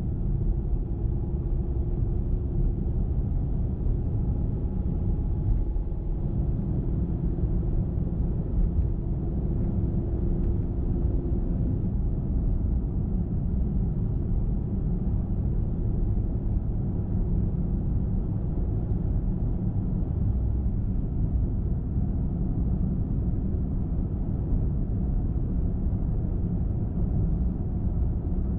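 A car driving at highway speed: a steady, low rumble of road and tyre noise with the engine underneath. A faint steady hum sits over it for roughly the first ten seconds, then fades into the rumble.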